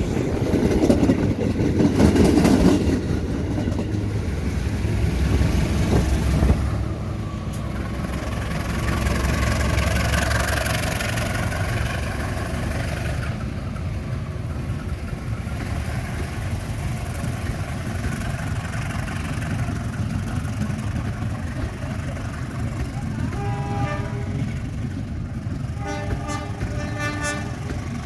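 A train rumbling past on the rails for the first several seconds, giving way to the steady running of road-vehicle engines. Near the end a horn sounds twice in quick pulsing beeps.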